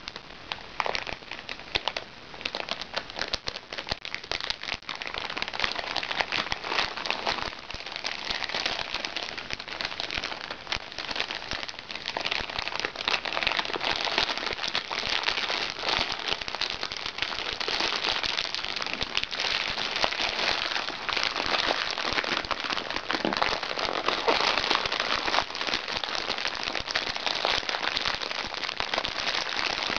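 Plastic packaging being crinkled, rubbed and squeezed by hands: a dense, continuous crackling rustle, louder from about five seconds in.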